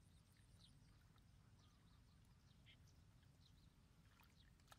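Near silence: faint outdoor ambience with a low rumble and a few faint, short high chirps scattered through.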